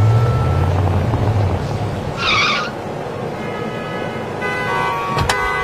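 Car sound effects: a low engine rumble that fades after about a second and a half, a short hiss about two seconds in, then a steady, sustained car horn sounding several pitches at once from about four and a half seconds in.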